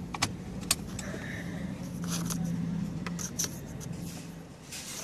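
Car seatbelt pulled across and buckled, with two sharp metallic clicks in the first second, over the car's steady low hum.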